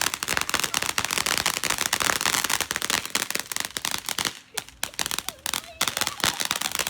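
Fireworks going off as a rapid, dense crackle of firecracker pops for about four seconds. The pops then thin out to scattered cracks after a brief lull.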